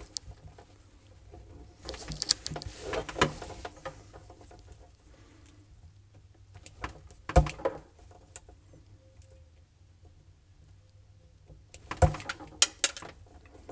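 Wire strippers and fingers handling thin insulated sensor wires: a short spell of rustling and small clicks about two seconds in, a single sharp click in the middle, and a few more clicks near the end.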